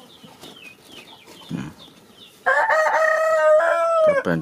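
A rooster crows once: a loud call that starts suddenly past the middle and holds steady for under two seconds before dropping off. Before it, only faint high chirps.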